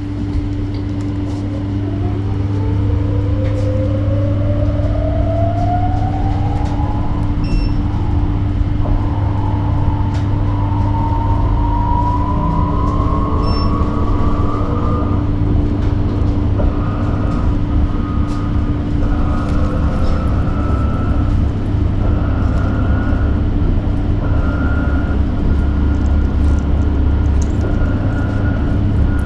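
Electric bus pulling away and accelerating, its traction motor whine rising steadily in pitch over a low hum and road noise, then holding at a high, nearly steady pitch as the bus cruises.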